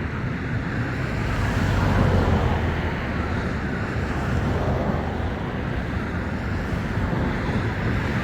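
Strong wind blowing across the microphone: a steady, rumbling rush of noise that swells a little with the gusts.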